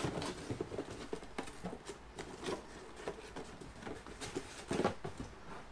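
Hands rummaging in a cardboard box and handling the paint sprayer's plastic parts: irregular rustling with scattered light knocks and clicks.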